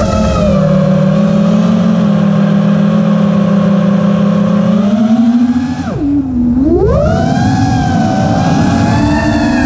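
FPV quadcopter's motors and propellers whining steadily, several close pitches at once. About six seconds in the pitch drops sharply and climbs back up as the throttle is cut and reapplied.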